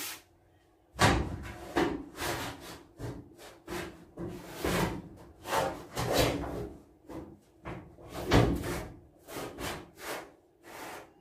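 Magnet-backed canvas painting being pushed and slid against a steel shipping-container wall: irregular rubbing and scraping, with a few sharp knocks, the loudest about a second in and again past eight seconds.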